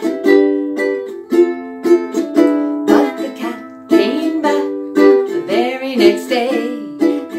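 Ukulele strummed in steady chords, about two strokes a second, with a woman singing along from about three seconds in.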